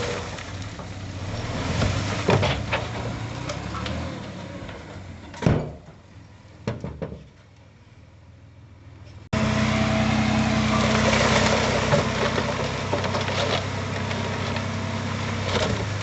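Diesel engine of heavy earthmoving equipment running steadily, with a sharp knock about five seconds in; the engine sound drops away for a few seconds, then comes back suddenly and louder after about nine seconds.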